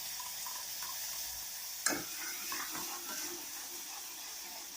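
Wet ground pepper, cumin and coconut paste sizzling in hot ghee in a pot, the sizzle slowly dying down, with one sharp clink about two seconds in.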